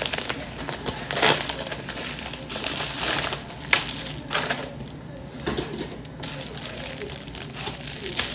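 Packaging crinkling and rustling as a mailed package is opened and unwrapped, with two sharper, louder crackles about a second in and near four seconds.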